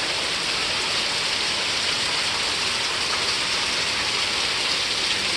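Steady rain, an even dense hiss of falling drops.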